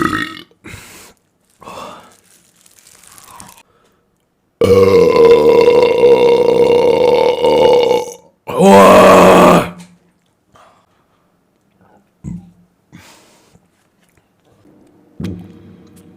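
A person burping, several times. A couple of short burps come at the start. Then a long, loud, pitched burp of about three and a half seconds is followed at once by a second loud burp of about a second. A few small burps come near the end.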